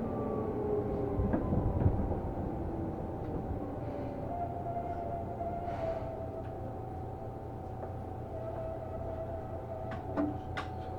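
Inside a Seibu New 2000 series commuter train: running noise with the motor tones falling away as it brakes to a stop, with a jolt about two seconds in. Then a steady hum from the standing train, with a few sharp clicks near the end.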